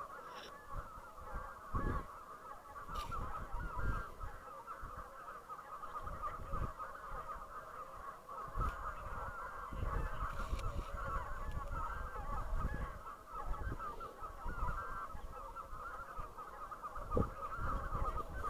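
A large flock of geese calling, a continuous chorus of overlapping honks and cackles. Low thumps and rumbles from the camera being handled come and go under it.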